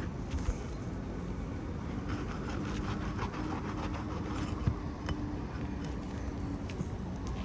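Scattered small clicks and taps of a roofing nail-removal tool working at the nails under asphalt shingles, one sharper tap a little past halfway, over a steady outdoor rumble with a faint low hum in the middle.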